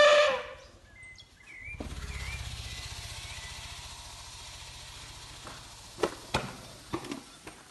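Asian elephants: a high-pitched call with rich overtones cuts off about half a second in. After a brief lull comes a low pulsing rumble with a breathy hiss that fades over a few seconds. A few sharp clicks follow near the end.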